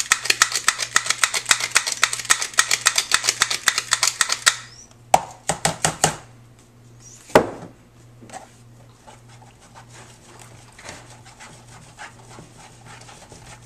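Pepper mill being twisted to grind pepper: a fast, even run of ratcheting clicks for about four and a half seconds, a few more clicks around five to six seconds in, then one sharp knock. After that, soft scraping and small clicks of a spatula stirring thick paste in a plastic tub.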